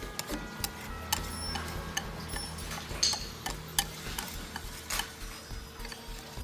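Scattered light clicks and clinks of kitchen utensils against a metal mixing bowl while batter is folded in with a wire whisk.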